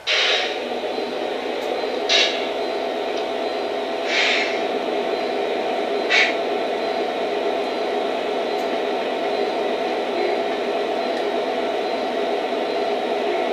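Lionel SD70ACe model's onboard diesel sound, the prime mover idling steadily through its small speaker, coming in abruptly. Four short hisses of air come about two seconds apart in the first seven seconds.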